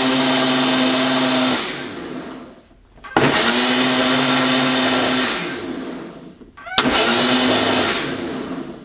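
Personal push-down blender blending a milkshake in three pulses. The motor runs steadily, winds down when the cup is let up, then clicks back on about three seconds in and again near seven seconds, and winds down at the end.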